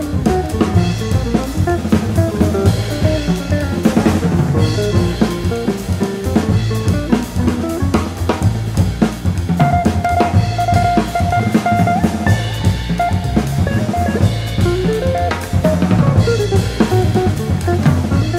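Jazz trio playing an instrumental passage: hollow-body guitar and double bass over a drum kit, with kick, snare and rim strokes prominent throughout.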